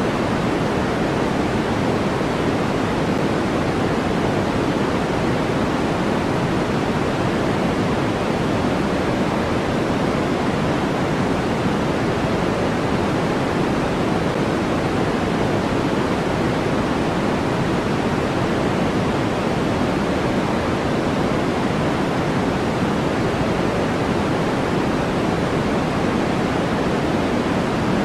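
Steady generated noise, an even rushing sound with no change or events, fuller in the low and middle range than in the treble.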